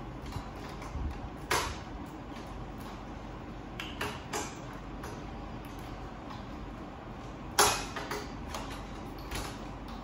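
A handful of short clicks and scrapes from copier parts being handled during disassembly, the loudest about three quarters of the way through, over a steady background noise.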